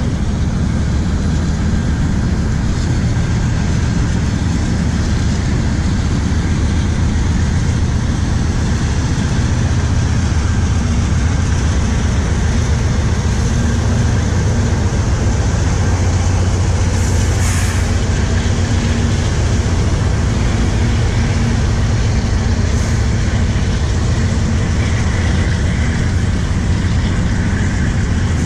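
Steady low rumble of a freight train passing on a neighbouring track, with a brief hiss about two-thirds of the way through.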